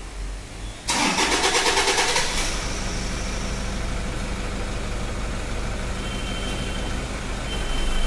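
Toyota Fortuner engine starting: the starter cranks about a second in, the engine catches after about a second and a half of cranking, then settles into a steady idle.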